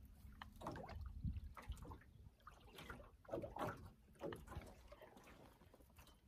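Small waves lapping and sloshing against the hull of a small aluminium fishing boat: faint, irregular soft splashes.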